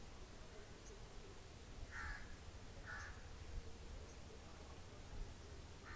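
A crow cawing faintly twice, the calls about a second apart, over low background hiss.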